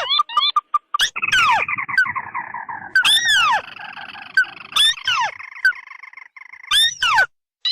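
Recorded crake lure calls, the tikusan merah (ruddy-breasted crake) mixed with a second crake, played as a bird-trapping lure: loud, sharply down-slurred calls repeated in clusters over a rapid rattling chatter.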